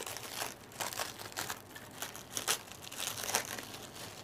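Thin clear plastic wrapping crinkling in the hands in irregular crackles as a die-cast toy van is unwrapped from it.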